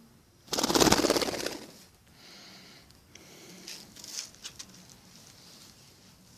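A budgerigar's wings flapping in a loud flurry lasting about a second, followed by softer rustling.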